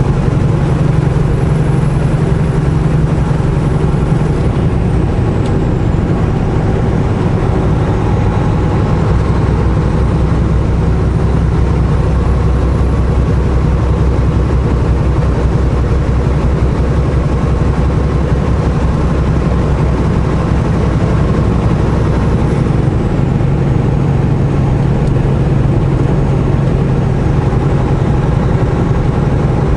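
Semi truck's diesel engine running steadily while under way, heard from inside the cab with road noise. The engine note shifts about four seconds in and shifts back about three-quarters of the way through.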